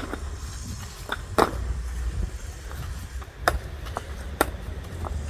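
Concrete paving stones clacking sharply as they are set down against one another, about six separate knocks, over a low steady engine rumble.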